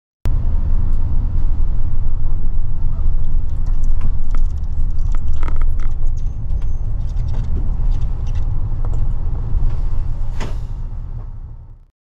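Low, steady rumble of an express coach heard from inside the cabin, with scattered light rattles and clicks. It cuts in abruptly just after the start and fades away near the end.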